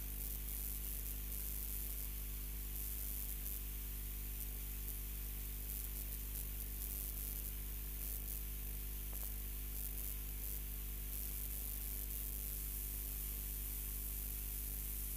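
Steady electrical hum with static hiss, unchanging throughout, as from an open audio line with nothing playing.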